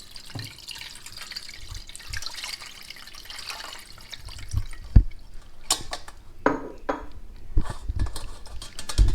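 Cold water running over freshly boiled macaroni in a strainer to rinse off the starch, a steady splashing for about four seconds, then stopping, followed by dripping and a few knocks and clatters, the loudest a thump about five seconds in.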